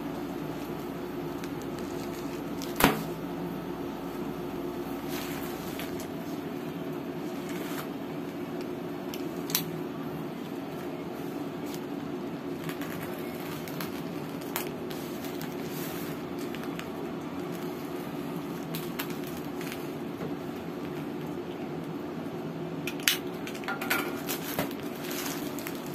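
A plastic courier mailer is handled on a wooden table and slit open with a small box cutter. There is a sharp knock about three seconds in, then scattered light taps and crinkles, several in quick succession near the end, over a steady low hum.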